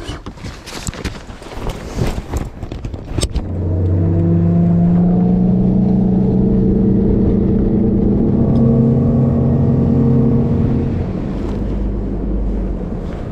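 A few scattered knocks and clatters, then a boat's outboard motor running steadily from about four seconds in. About eleven seconds in it eases off to a lower, quieter drone.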